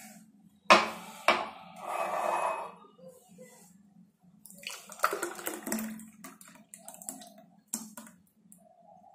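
A glass knocked down onto a stone counter, the loudest sound, about a second in, followed by a second knock; then a thick milkshake poured into the glass, splashing for a second or two around the middle. A faint steady hum runs underneath.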